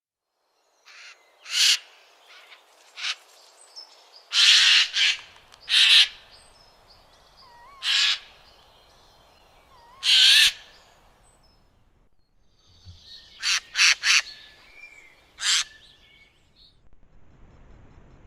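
A series of short, harsh animal screeches, about a dozen in all, some singly and some in quick pairs, with a close triplet a little past the middle. Faint thin chirps sound between them.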